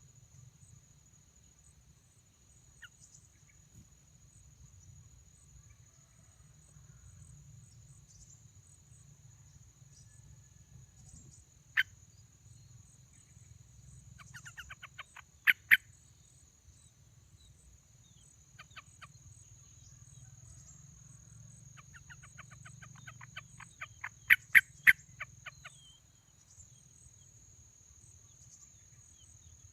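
Bulbul nestlings giving rapid, evenly repeated begging chirps in two loud spells, one about halfway through and a longer one near the end, with a sharp click just before the first. A steady high-pitched drone of crickets runs underneath.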